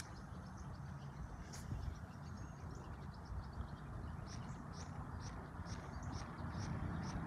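Outdoor ambience: a steady low rumble of wind on the microphone, with a bird chirping over and over in short, separate notes, more often in the second half.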